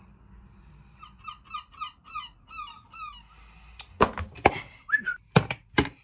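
A quick run of about a dozen short whistled chirps, each dipping slightly in pitch. Then come four loud knocks from a plastic tub of whole fish being handled, with one more short falling chirp among them.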